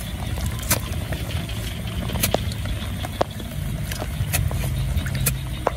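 A hand digger chopping into wet mud and earth, with several sharp irregular knocks as the blade strikes and clods land. A steady low rumble runs underneath.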